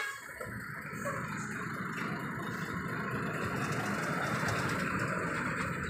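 Heavy tractor truck's engine running steadily under load while its rear tandem wheels spin on the asphalt, a steady noisy drone.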